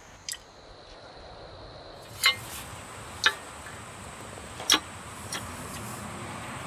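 A handful of sharp metallic clicks and clinks, spaced about a second apart, as a socket spanner and bolts knock against the metal head of a garden loop rake while a plough head attachment is fitted. A faint steady hiss runs beneath.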